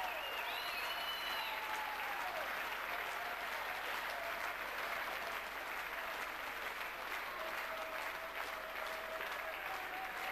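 Arena crowd applauding steadily, with high, wavering whistles over the clapping in the first two seconds.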